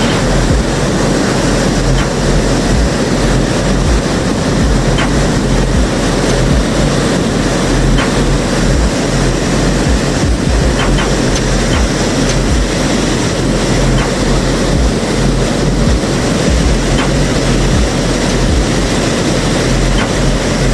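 Waterfall: water pouring over a drop in a loud, steady rush with a deep low rumble.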